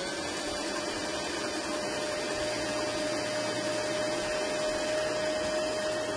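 Electric stand mixer motor running steadily with a constant whine, its wire whisk beating egg whites into a light foam in a steel bowl.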